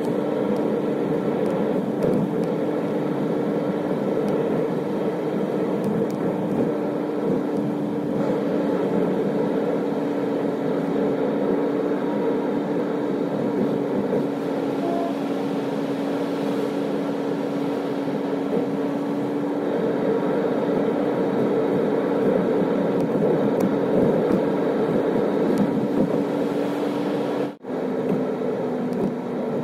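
A car driving at steady speed: engine and road noise with a steady droning hum. Near the end it cuts out for a moment and comes back slightly lower in pitch.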